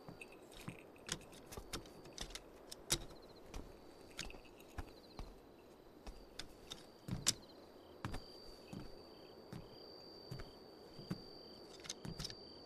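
Crickets chirping steadily in a high, pulsing trill. Scattered soft footsteps and light knocks sound over it, the sharpest about three seconds in.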